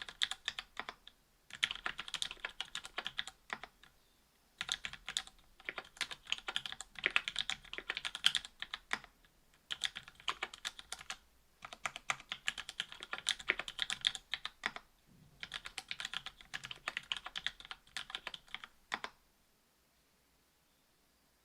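Mechanical keyboard typing on a Duck Orion V2.5 with lubed Cherry Hyperglide MX Black linear switches, an FR-4 plate and GMK keycaps. Rapid keystrokes come in runs of a few seconds with short pauses, and the typing stops about two seconds before the end.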